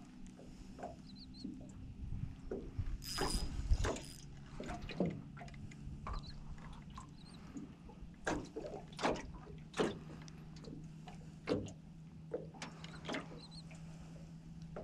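Small open boat's hull knocking as water slaps against it, a string of short sharp knocks and slaps with the loudest about three to four seconds in, over a steady low hum.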